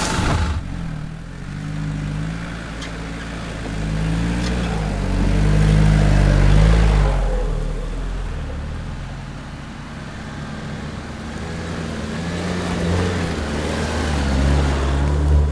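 Nissan Patrol 4x4's engine pulling the SUV slowly along a muddy forest track, its revs rising and falling. It grows louder as the vehicle draws close near the end.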